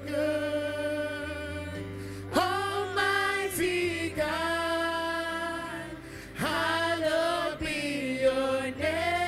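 Worship team of a male lead and female backing singers singing a slow gospel worship song into microphones, in long held notes with a new phrase starting every two seconds or so.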